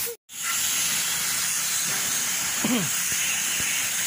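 Steady hiss of water spraying from a hose, with a split-second gap just after the start and a brief voice sound about two-thirds of the way through.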